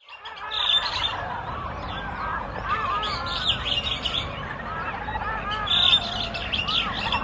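Many birds chirping and calling at once, short arched calls overlapping, over a low steady rumble. The sound fades in over the first half second.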